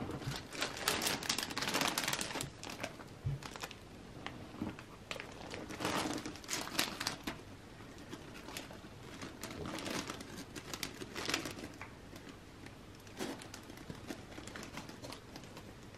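Crinkling and rustling of wrapping as a dream catcher is handled and drawn out of a sheer purple organza bag, in irregular spurts that are busiest in the first few seconds and again around the middle.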